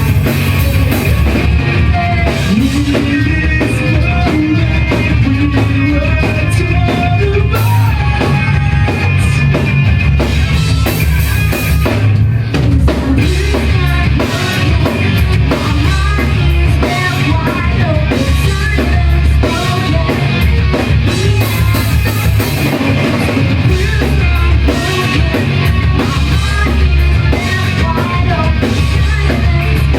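Live rock band playing loudly: a full drum kit and guitars, with a voice singing over them.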